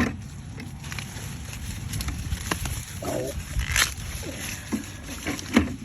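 Corn stalks and leaves rustling, with a few sharp snaps as ears are pulled and checked, one right at the start, one just before four seconds in and one near the end. A short pitched call-like sound is heard about three seconds in.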